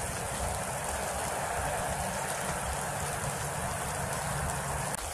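Steady rain falling, with drops landing on the camera itself, over a low rumble.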